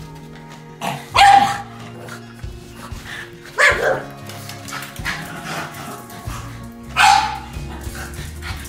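Pugs barking in play, three loud barks a few seconds apart.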